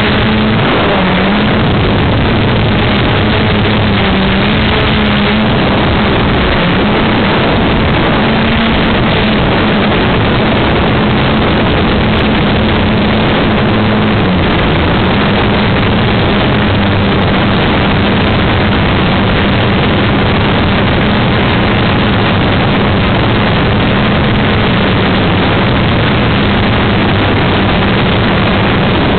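Motor and propellers of a radio-controlled aircraft running steadily, heard close up from its onboard camera as a loud drone whose pitch wavers slightly, mixed with rushing wind noise.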